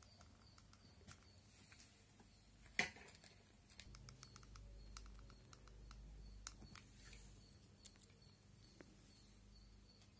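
Near silence with scattered faint clicks and taps, the sharpest about three seconds in, from a hot glue gun and cut foil blister-strip pieces being pressed onto glass. A faint low hum sets in about four seconds in.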